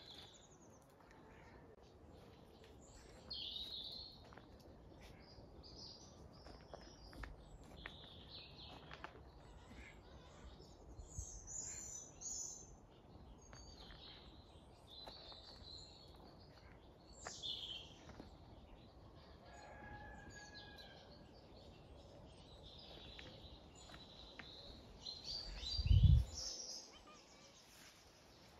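Small birds chirping and calling on and off over a low outdoor hiss. A single low thump near the end is the loudest sound.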